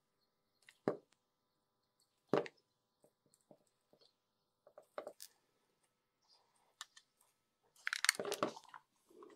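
Quiet hand work with a hot-tip soldering gun and a nylon cable tie on a nylon plate: a few faint, sharp clicks and taps spaced a second or two apart, then a short burst of handling noise near the end as the plastic part is picked up.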